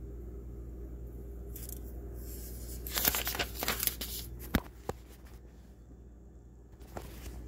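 Handling noise: a few seconds of rustling and scraping, then two sharp knocks about a third of a second apart and another faint knock near the end, over a steady low hum.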